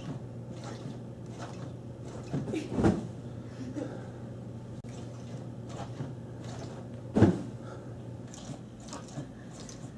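Kids roughhousing on a large foam-filled bean bag chair: scattered thumps and knocks, with two heavier thuds about three and seven seconds in.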